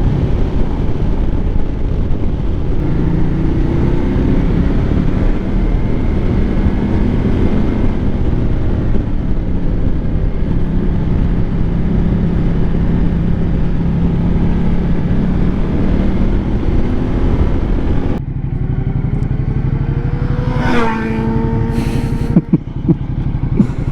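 Ducati Multistrada 1200's V-twin engine running at road speed under wind noise. About eighteen seconds in the wind noise drops and the engine note rises as the bike accelerates, followed by a couple of sharp clicks near the end.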